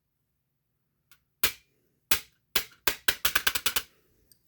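A toy's thin aluminum body being struck, with sharp knocks that dent the soft metal. There are two single hits, then a quick run of about ten knocks.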